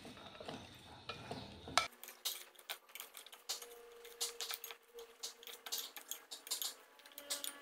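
Chopsticks stirring fish pieces and sliced lemongrass in an unglazed clay pot: a run of irregular clicks and taps as the chopsticks knock against the pot and the food.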